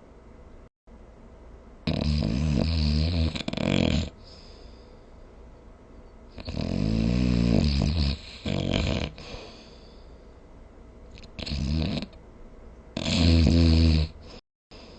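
A sleeping person snoring: four loud snores a few seconds apart, two of them trailed by a short second snore.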